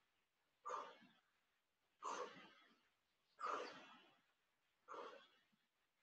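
A woman's short, forceful breaths, one with each kettlebell swing: four faint puffs about a second and a half apart.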